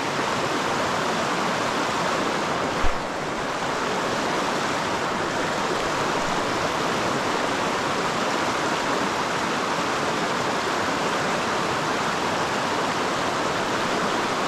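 Steady rush of water running over the rocks of a mountain creek's rapids, with one brief thump about three seconds in.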